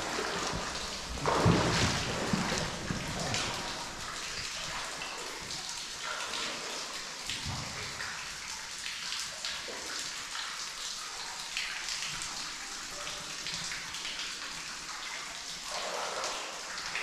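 Water dripping inside a flooded stone railway tunnel: many small drips over a steady wash of water, echoing off the tunnel walls. A louder stretch comes about a second in.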